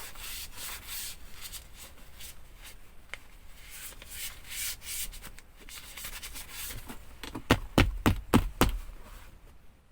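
Dry tissue being rubbed over a phone case in uneven wiping strokes. Near the end come a handful of sharp knocks in quick succession, louder than the wiping.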